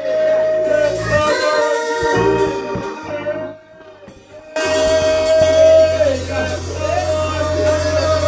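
Live church worship music: a keyboard organ holding long chords with a drum kit and cymbals, and voices singing along. The music drops low for about a second midway, then comes back in louder with the drums.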